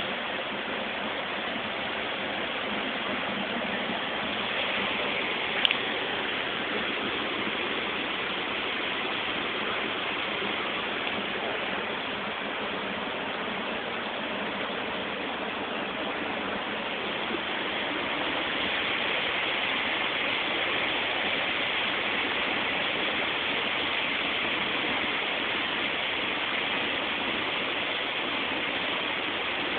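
Water pouring and splashing steadily off the Bale Grist Mill's giant wooden overshot water wheel as it turns, a continuous rushing. One sharp click about six seconds in.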